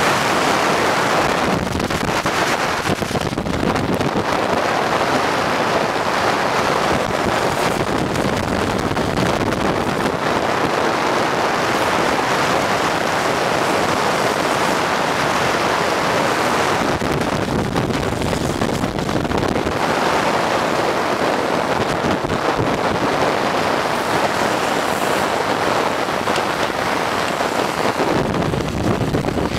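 Wind rushing over the microphone at downhill speed, mixed with the roar of wheels rolling on asphalt: a loud, steady rushing noise that eases briefly a few times.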